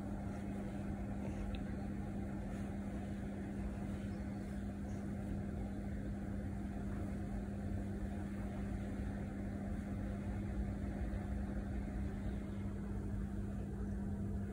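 A steady low hum with a faint low rumble beneath it.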